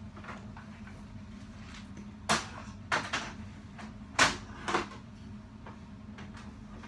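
Five sharp knocks and clatters of things being handled, bunched between about two and five seconds in, over a steady low hum.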